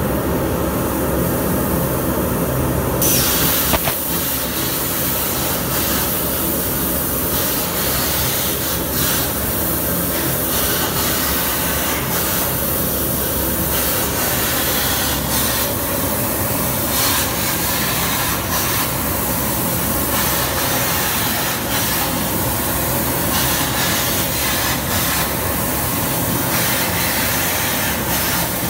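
CNC plasma torch cutting 8 mm mild steel at 130 amps with oxygen and air. A loud hiss starts about three seconds in and keeps switching on and off every few seconds as the torch moves between cuts, over a steady machine hum.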